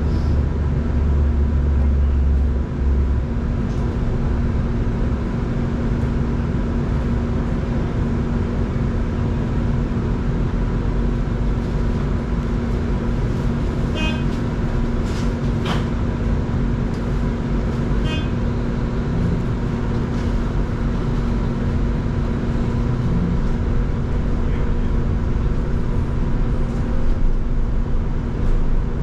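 Inside a moving Irizar IE-TRAM battery-electric bus: steady road rumble and a constant hum from the drive. About halfway through and again four seconds later come short beeping tones, with a brief rattle between them.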